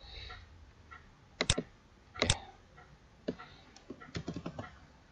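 Clicks from a computer mouse and keyboard: two sharp double clicks about a second and a half and two seconds in, then a run of lighter taps.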